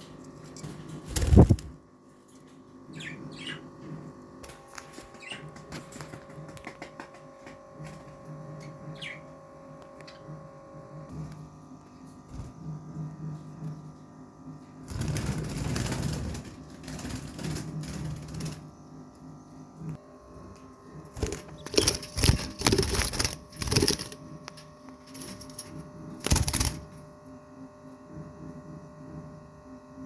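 Budgerigars scuffling and fluttering inside a clay-pot nest box: several loud, short bursts of rustling and bumping about a second in, around the middle, and in a cluster near the end, over a steady low hum, with a few faint high chirps.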